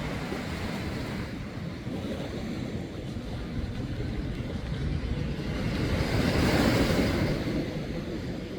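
Wind buffeting the microphone over open water, with sea noise beneath; it swells to a louder gust about six seconds in, then eases.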